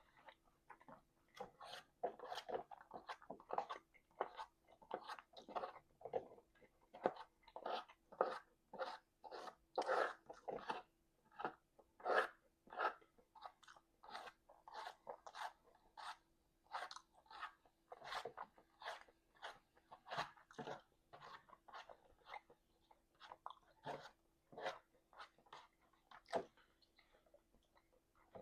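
A person chewing food messily close to the microphone, with a steady run of wet, smacking chews at about two a second.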